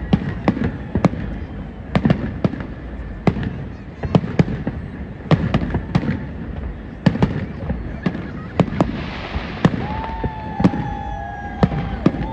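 Aerial fireworks shells bursting in rapid, irregular succession, several sharp bangs a second over a continuous low rumble. In the last couple of seconds a steady whistle-like tone sounds over the bangs.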